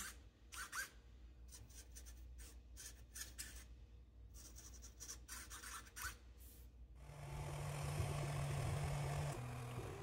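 Small hobby servo motor whirring through its plastic gears in many short bursts as the joystick swings it back and forth, then a steadier buzz for about two and a half seconds near the end.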